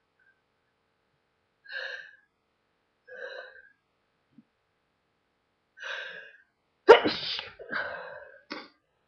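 A person sneezing, the sneeze deliberately induced: three quieter gasps a second or more apart build up to one loud, sudden sneeze about seven seconds in, followed by two shorter trailing sounds.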